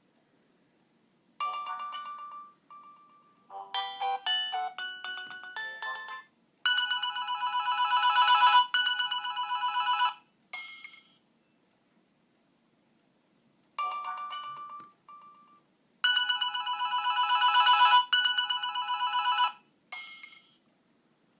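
Nokia 2610 mobile phone playing a ringtone melody through its small loudspeaker. The tune starts about a second in, stops, and plays through again after a short pause.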